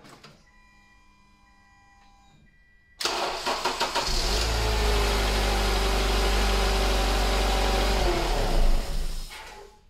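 A car's starter cranks the engine about three seconds in until it catches. The engine then runs for about five seconds and is switched off near the end. The battery is weakening and sags below 9 volts during the crank, which the mechanic says you can hear in how it cranks.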